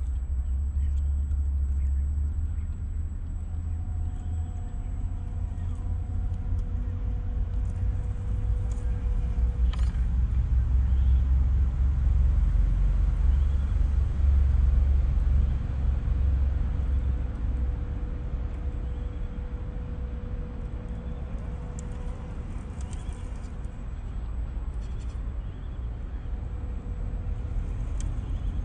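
A steady low rumble, with the faint thin whine of the MN82 scale RC truck's small electric motor and gears coming and going as the truck crawls over dry pine needles.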